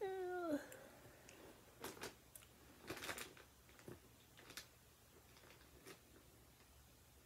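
A woman's short hum that falls in pitch, then a few faint, scattered clicks and ticks.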